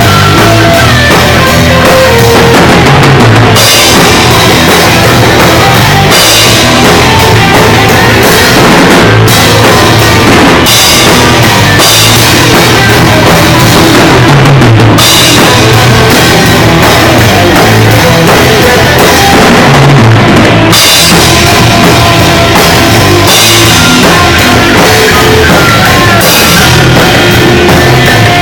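Loud rock music from a garage band, with a drum kit to the fore.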